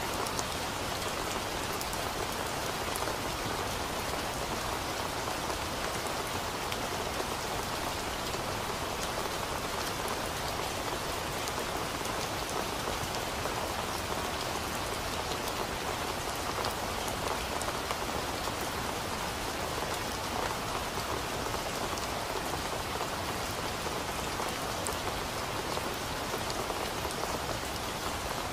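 Steady rain falling on forest leaves: an even hiss with scattered ticks of individual drops.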